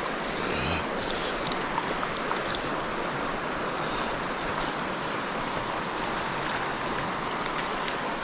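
Steady rushing of river current, a constant watery hiss.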